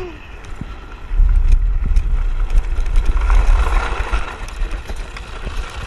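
Wind buffeting the open microphone of a GoPro mounted on a moving land yacht: a heavy low rumble, with a rushing hiss that swells about three seconds in.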